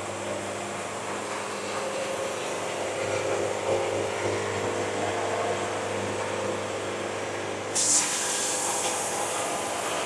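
Band sawmill running steadily, its blade cutting a board from a walnut log. A louder, sharper hiss sets in suddenly a little before eight seconds in.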